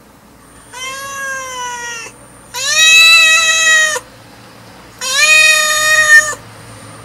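Domestic cat meowing three times in long, drawn-out calls. Each rises in pitch at the start and then holds, and the first is softer than the other two.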